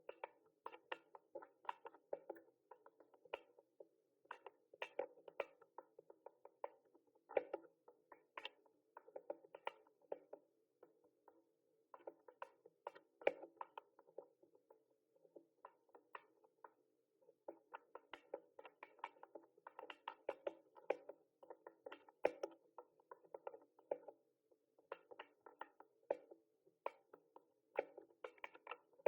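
Typing on a mechanical keyboard: a quick, irregular run of key clicks, several a second, in bursts with short pauses between them.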